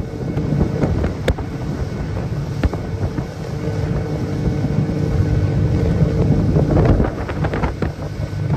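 Fishing boat under way at speed: its engine drones steadily with wind buffeting the microphone, and the hull knocks now and then against the waves.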